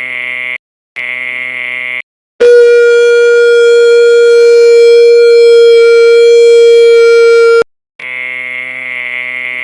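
Electronic buzzer and alarm sound effects: two harsh buzzes, the second about a second long, then a loud steady alarm tone held for about five seconds that cuts off abruptly, then a continuous harsh buzz.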